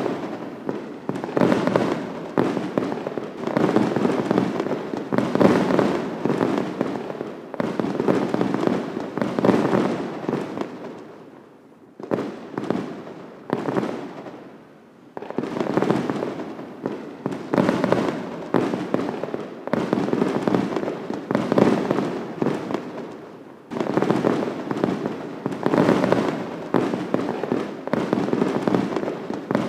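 Many fireworks going off together: a dense run of bangs and crackling, with two short lulls about twelve and fifteen seconds in, after which the bursts pick up suddenly again.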